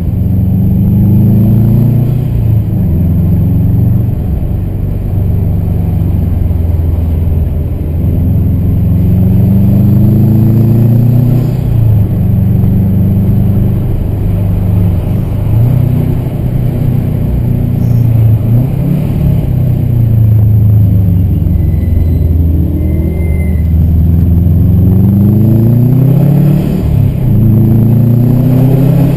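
Subaru flat-four engine heard from inside the cabin, pulling hard through the gears. Its pitch climbs for a few seconds, then drops back, over and over, under a steady road rumble.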